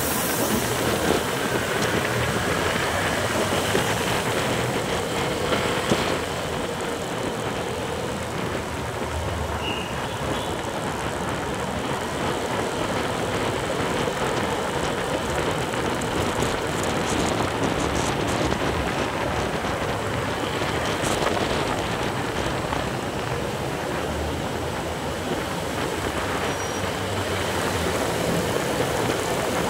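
Steady rush of wind and road noise from riding through city traffic, with the surrounding cars and motorcycles blended into it.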